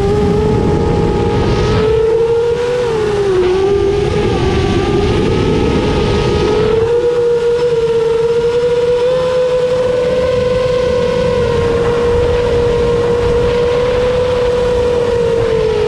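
Brushless motors and 7-inch tri-blade props of a 7-inch FPV quadcopter in flight: a loud, steady whine whose pitch follows the throttle, dipping about three seconds in, holding level from about halfway, and falling right at the end. A rushing noise lies under the whine for the first half.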